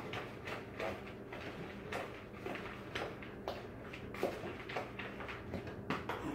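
A utensil stirring dry pancake mix in a plastic mixing bowl, with soft, irregular scrapes and taps against the bowl.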